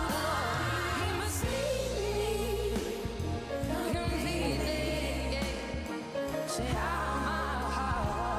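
Live pop performance: a woman's lead vocal over a steady bass line and drums.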